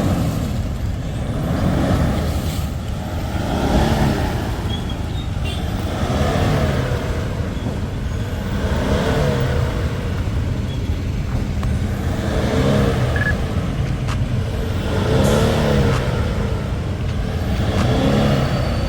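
Toyota Fortuner's diesel engine being revved up and let back down again and again, a rise and fall in pitch every two to three seconds.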